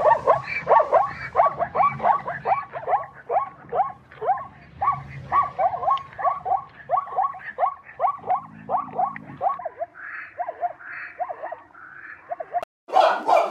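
Zebra barking call: a long run of short, yelping, downward-sliding barks, several a second. Near the end it stops, and a louder, different burst of sound begins.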